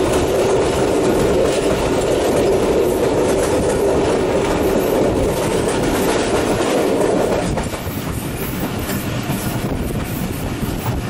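Jaffar Express passenger train running at speed over the Jhelum River bridge: a steady, loud rumble and clatter of coach wheels on the rails. The rumble eases somewhat about seven and a half seconds in.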